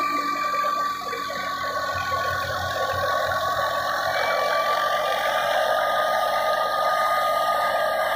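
Tractor-driven wheat thresher running steadily, with a constant high whine over the machine's noise.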